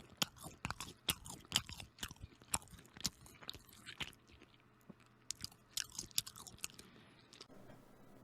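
Close-miked chewing of crunchy food: a run of sharp, irregular crunches and mouth clicks in two spells, with a pause of about a second between them.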